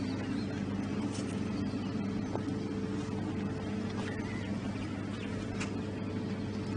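A steady engine drone holding a few low tones, with faint clicks now and then.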